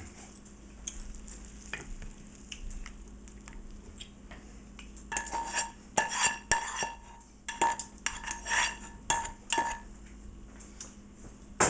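A utensil scraping and knocking against a pan as sauced chicken and cashews are scraped out onto a plate. The strokes are sparse at first, then come thick and fast with a ringing tone from about five seconds in, and thin out near the end.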